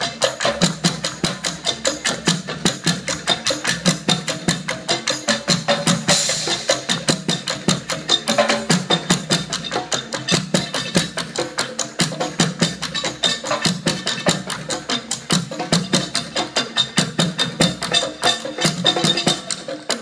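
A live percussion ensemble plays a fast, steady groove of dense drum strokes on a djembe-type hand drum, a drum kit and drums made from recycled plastic barrels. A brighter crash comes about six seconds in.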